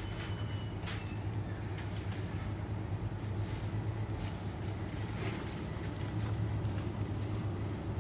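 Steady low hum of a supermarket's background machinery, such as its chiller cabinets, with a few faint clicks and rustles.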